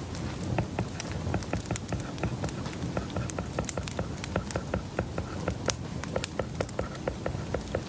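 Quick, uneven clicks and taps, several a second, over a steady low rumble.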